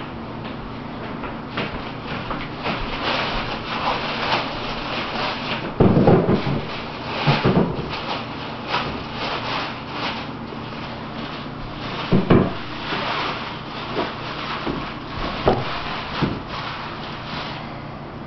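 Rubbing and scraping noise close to the microphone, a busy run of short scratchy strokes over a faint steady hum, with louder dull knocks about six and twelve seconds in.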